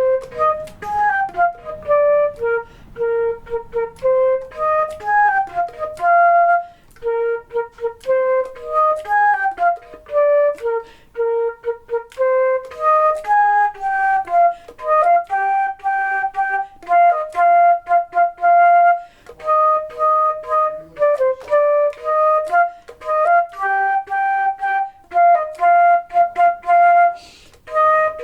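Solo flute playing a simple melody without accompaniment, in separate tongued notes with short breaks for breath between phrases.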